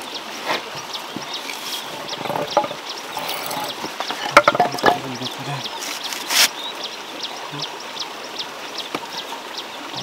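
Wooden beams and a block being handled and fitted together by hand: scattered knocks and scrapes, the sharpest just before halfway and again a little past it, over a steady outdoor hiss with faint short chirps.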